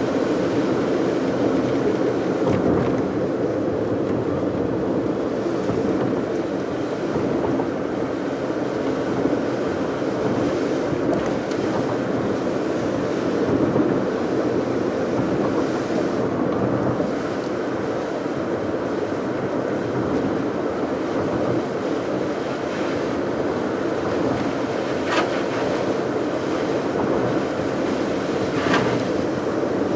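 A car driving at steady speed: continuous road rush of tyres on a rain-wet road, with two brief ticks near the end.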